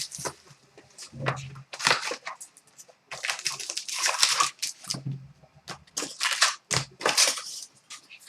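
Foil trading-card pack wrappers being crinkled and torn open by hand, in irregular bursts of crackling.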